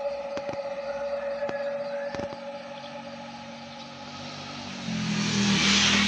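Motorcycle engine approaching, growing louder over the last second or so. A steady hum-like tone sounds under it in the first half and fades out midway.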